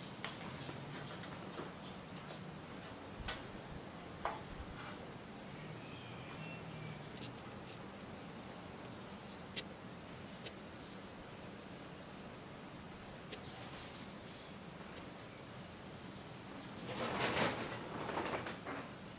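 Short, high chirps from a small animal repeating about every three-quarters of a second over steady background noise, with a few sharp clicks and a louder burst of rustling noise near the end.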